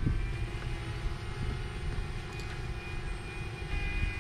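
DJI Mini quadcopter drone hovering, its propellers giving a steady whine made of several held tones over a low rumble.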